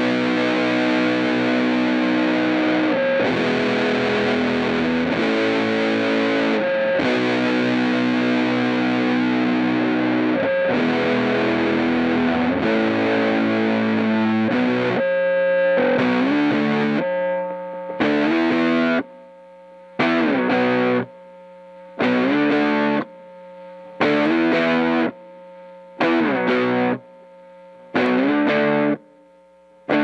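Electric guitar, a Fender Coronado II, played through a Greer Amps Gorilla Warfare MKII distortion/fuzz pedal (a RAT-style circuit with an LM308 chip) into a Strymon Iridium amp simulator. It plays continuous distorted riffing for about 17 seconds, then short distorted chord stabs about every two seconds, each cut off after about a second, with a faint steady tone in the gaps.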